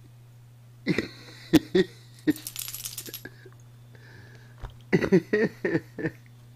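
Chihuahua snoring in its sleep: two bouts of short, rough snores, the first about a second in with a longer breathy stretch after it, the second near five seconds.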